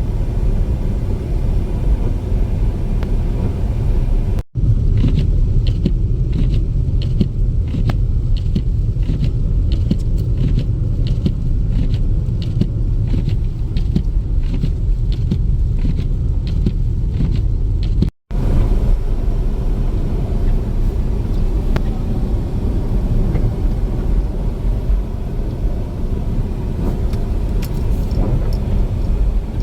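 Steady low rumble of a car driving, heard from inside the cabin, cutting out briefly about four and about eighteen seconds in. Between those breaks a faint, regular ticking repeats about once or twice a second.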